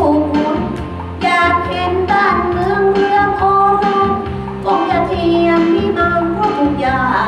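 A woman singing through a handheld microphone over a music backing track, holding some notes long.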